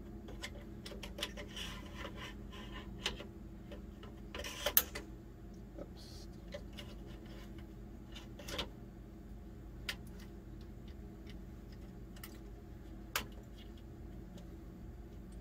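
Scattered small metal clicks and knocks from a rifle scope being set onto a Ruger Mini-14's receiver mount and the mount hardware being handled, the loudest about five seconds in, over a steady low hum.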